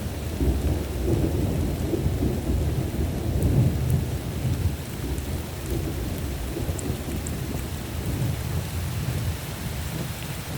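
Thunder rumbling over steady rain, loudest during the first four seconds or so and then easing off.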